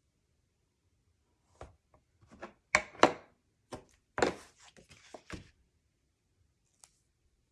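A quick cluster of taps and thumps as cardstock pieces and tools are handled and set down on a crafting table, the loudest few close together in the middle.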